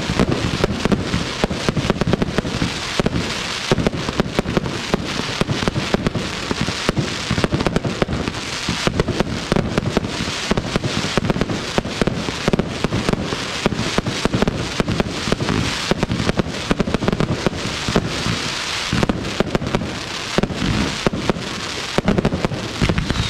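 Aerial fireworks display: a dense, continuous barrage of shell bursts and crackling, many bangs a second.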